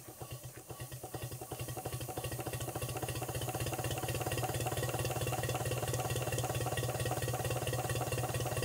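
Stuart 5A model steam engine running on compressed air, its rapid, even exhaust beats quickening and getting louder over the first few seconds as it picks up speed, then running steadily.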